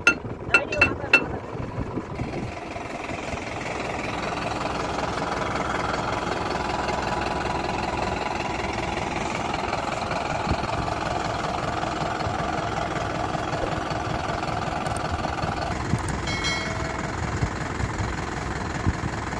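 Three ringing metal-on-metal strikes at the start, then a Sonalika 750 tractor's diesel engine running steadily.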